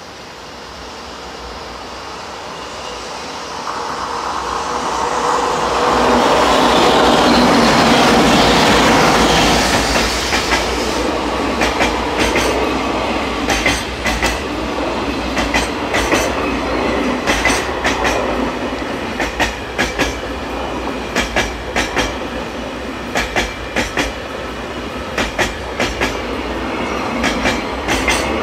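JR Freight EH500 electric locomotive hauling a container freight train past. The rumble builds as it approaches and is loudest as the locomotive passes, about six to ten seconds in. Then the container wagons roll by with a steady clickety-clack of wheels over the rail joints.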